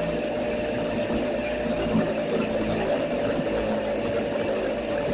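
Electric rotary tool spinning a ProShaper shrinking disc against the steel quarter panel, running steadily at high speed to heat the metal by friction to shrink a dent.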